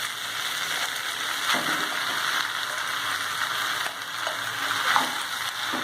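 Vegetables and rice sizzling in hot oil in a pan while being stir-fried, with a few short knocks of the stirring spoon against the pan.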